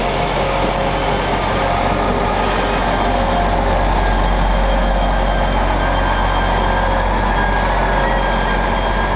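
Arriva Trains Wales Class 175 diesel multiple unit running past along the platform: a steady, loud rumble of its underfloor diesel engines and wheels on the rails.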